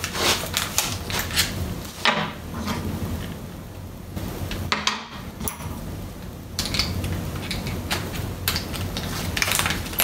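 Scattered light metallic clinks and clicks of a cordless drill and drill bit being handled, as a bit is fitted and tightened into the drill's chuck.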